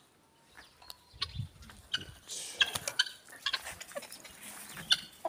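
Farmyard poultry clucking and calling in short, scattered squawks from about two seconds in, after a few faint knocks.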